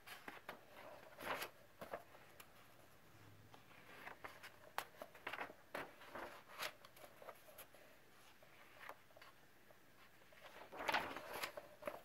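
Paper pages of a coloring book being turned by hand: faint rustling and soft clicks of the sheets, with a longer, louder rustle near the end.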